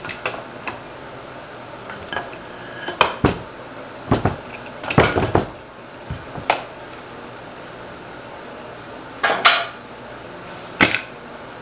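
Irwin Quick-Grip bar clamps being released and set down on a workbench, with the workpiece handled: a series of sharp clicks and clatters, some coming in quick clusters.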